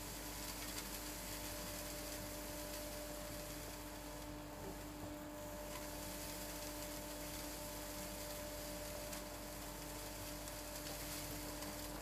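Vacuum running through a wide corrugated suction hose as hay and dust are drawn off a wooden floor: a steady hum with an even rush of air over it. The hiss thins briefly around the middle.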